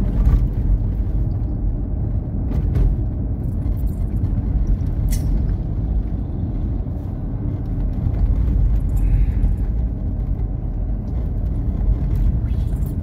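Steady low rumble of a car's engine and tyres heard from inside the cabin while driving, with a few light clicks.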